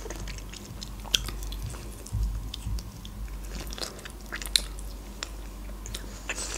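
Close-miked chewing and wet mouth clicks of a person eating mackerel, with soft lip smacks scattered through.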